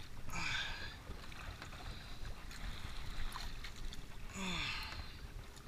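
Wind and choppy sea around a small outrigger boat, water washing against the hull, with two louder splashing surges about four seconds apart.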